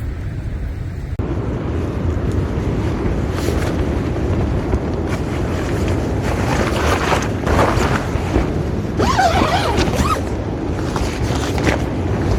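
Strong gusting coastal storm wind buffeting the microphone, a deep steady rumble with louder gusts swelling through the middle and later part.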